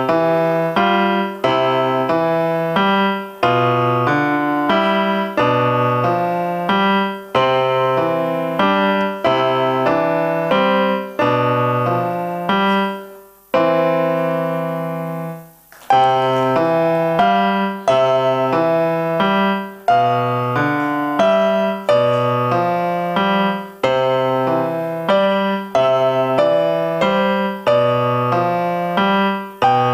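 Digital piano played solo with a piano voice: chords over a steady bass note roughly every beat. About halfway through, one chord is held and left to ring for about two seconds before the playing picks up again.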